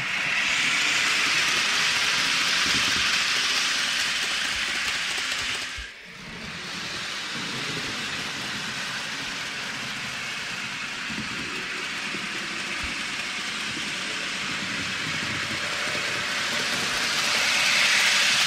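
H0 scale model freight wagons rolling over the track: a steady rolling rush of metal wheels on rail. It dips briefly about six seconds in and grows louder near the end as the wagons pass close.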